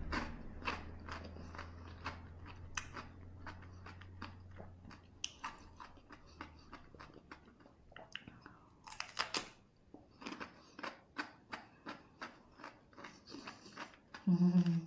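Close-up crunchy chewing and biting, with a run of irregular sharp crunches a few times a second. A brief hummed voice sounds near the end.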